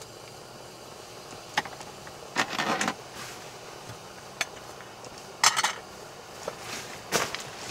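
Camping cookware clinking and clattering as a lid and pot are handled: a handful of sharp knocks, loudest in short runs about two and a half and five and a half seconds in, over the steady hiss of a gas camp stove.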